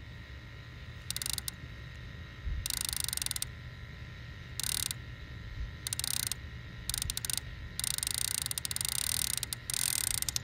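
Piscifun Chaos XS 60 conventional reel, its drag ratcheting in fast clicks as line peels off the spool in a string of stop-and-start runs, the longest near the end. A flathead catfish has taken the live bluegill bait and is running with it.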